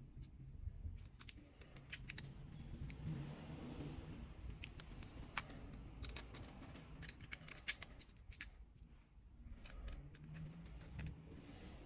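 Scattered small clicks and taps, irregular and faint, from tools and phone parts being handled during a smartphone repair.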